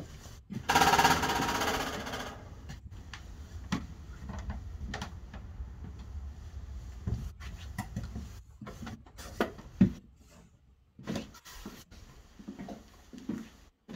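Footsteps and knocks on the old wooden floorboards of a railroad car, irregular and spaced out. About a second in there is a louder burst of fast rattling noise lasting about a second and a half.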